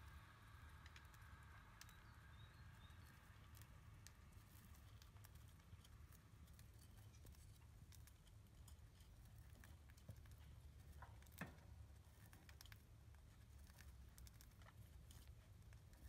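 Near silence: faint room tone with a low hum and scattered faint clicks, one a little more distinct about eleven seconds in.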